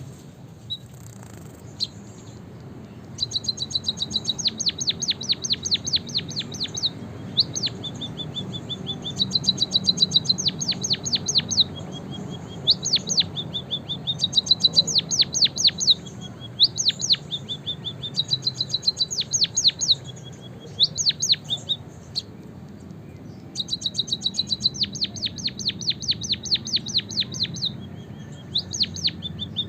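Finch singing canary-style song: rapid trills of fast downward-sweeping notes alternating with short level whistles, in phrases a few seconds long with brief pauses between them. A low steady hum runs underneath.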